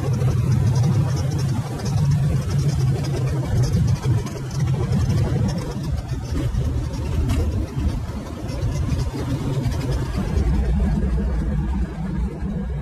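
Floatplane's piston engine and propeller droning steadily, heard from inside the cabin, with water rushing under the floats as the plane lands and runs on the lake.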